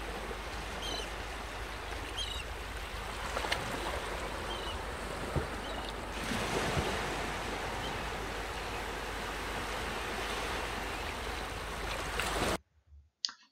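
Sea waves washing on a shore, a steady surf sound played as background ambience, with a few short high chirps in the first few seconds. It cuts off abruptly near the end.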